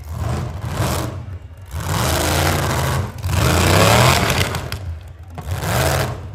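Demolition derby cars' V8 engines revving hard in four bursts, their pitch climbing and dropping, loudest about three to four seconds in.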